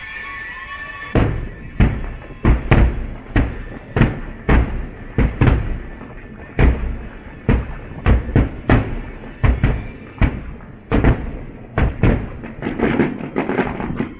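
Fireworks bursting at a distance: a run of irregular booms and bangs, some with a short rumbling tail, coming faster near the end.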